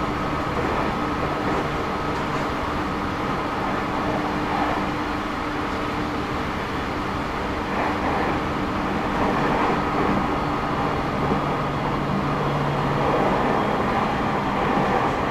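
Running noise inside a JR 209 series 2100-subseries electric train, recorded in a motor car: a steady rumble of wheels on rail mixed with the hum of the MT68 traction motors. A few faint steady tones shift and fade about two-thirds of the way through.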